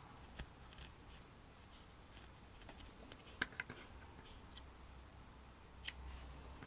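Quiet handwork on a needle-felted wool cat: faint scratchy ticks of a felting needle and fingers on the wool, then two small clicks a little past halfway. Near the end comes one sharp snip of small craft scissors trimming the fur.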